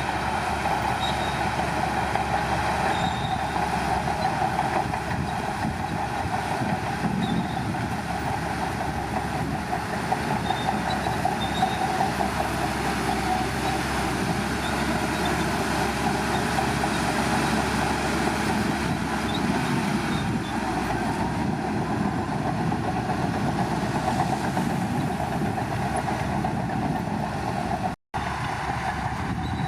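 Shantui bulldozer running steadily under load, a continuous loud machine noise with a metallic, track-like clatter. The sound drops out for an instant near the end.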